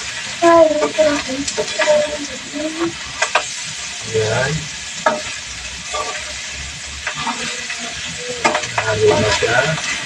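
Flaked stingray frying in oil in a pan, sizzling steadily while a spatula stirs it, with scattered sharp clicks and scrapes of the spatula against the pan.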